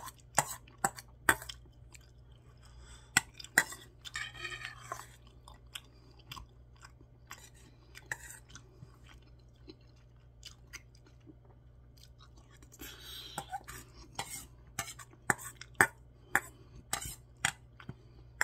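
Metal spoon clinking and scraping against a stainless steel bowl as rice is scooped up, in sharp clicks that cluster at the start and again in the last few seconds. Close-up chewing and mouth sounds fill the stretches in between.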